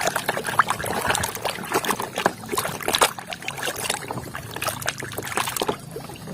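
Water sloshing and splashing as muddy toy cars are washed by hand, with frequent small irregular knocks and clicks of the toys.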